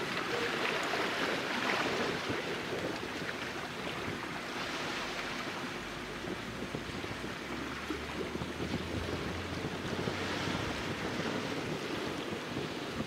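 Small waves washing onto the shore, the wash swelling and easing every few seconds, with wind buffeting the microphone. A low rumble comes in for a few seconds in the middle.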